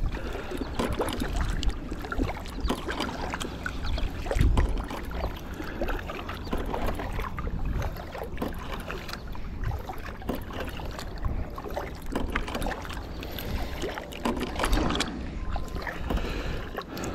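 Double-bladed kayak paddle stroking on alternate sides: the blades dip into calm water with irregular splashes and drips.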